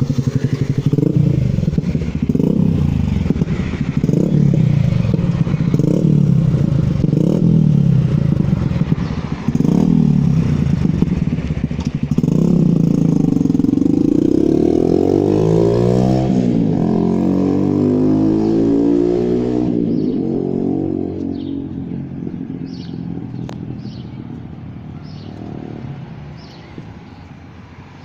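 Suzuki Gixxer SF motorcycle's single-cylinder engine through a wide chrome aftermarket exhaust tip. The throttle is blipped over and over, about once every second and a bit. Then comes one long rev that climbs in pitch and falls back, after which the engine sound drops and grows fainter.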